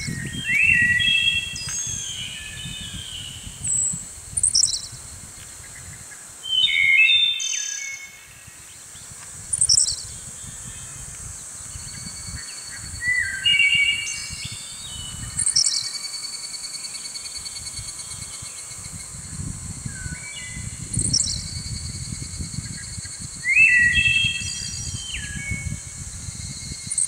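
Small songbirds singing: short whistled, gliding phrases every few seconds, several birds overlapping, over a low rumble.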